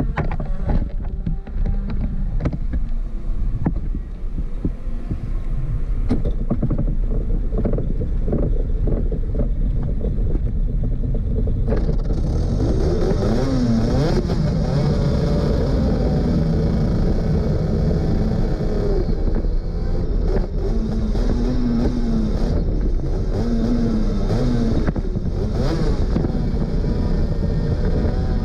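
Superkart 250's two-stroke kart engine running. For about the first twelve seconds it pulls at low revs with a rapid crackle, then it revs hard, its pitch climbing and dropping again and again as it is run up through the gears.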